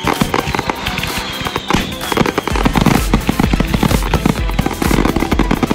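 Fireworks popping and crackling in rapid, dense succession over music; a heavy bass beat joins about two and a half seconds in.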